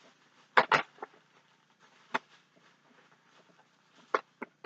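Handling sounds of a boxed die-cast model car: two quick clicks about half a second in, a single tap near the middle, and two more near the end, over a faint rustle.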